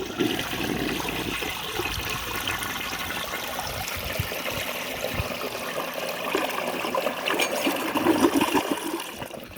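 A 1967 Crane Canada toilet flushing: a steady rush of water through the bowl for about nine seconds, fading out near the end. It is a strong, full flush.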